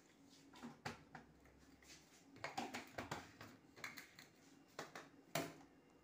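Faint, scattered light clicks and knocks from kitchen things being handled, the loudest about five seconds in.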